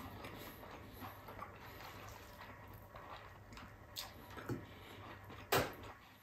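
Quiet wet eating sounds of rice and sinigang eaten by hand: chewing and mouth noises, with a few short smacks, the loudest about five and a half seconds in.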